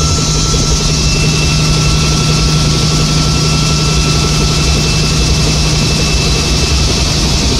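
Bell 47 helicopter's piston engine and rotor running steadily in cruise flight, heard from inside the bubble cockpit: a loud, even low drone with a thin high whine over it.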